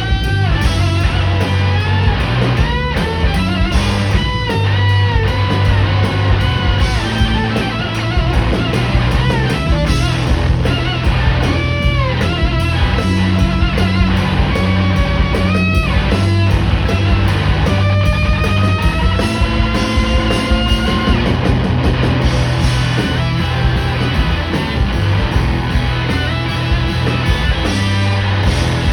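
Live rock band playing loudly: electric guitar lead with bent, sliding notes over bass and drums, with no vocals.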